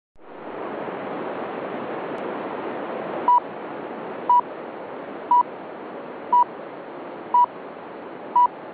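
Soviet radio time signal: six short pips at one pitch, one a second, heard over steady hiss on a longwave AM broadcast. The last pip marks the top of the hour.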